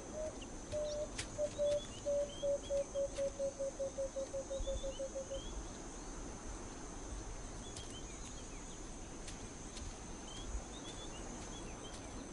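A bird calling a series of hooting notes that come faster and faster and drop slightly in pitch, fading out about five seconds in. Small high chirps and a steady high insect drone run underneath.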